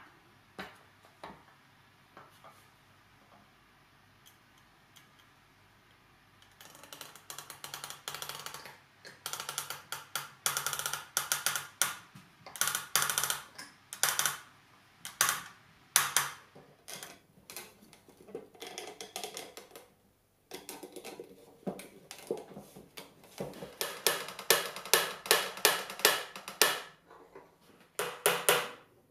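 Sharp clicks and wooden knocks from working a chair frame held in clamps. A few faint clicks come first; about six seconds in, dense runs of quick clicks start, and near the end they turn into evenly spaced sharp knocks at about four a second.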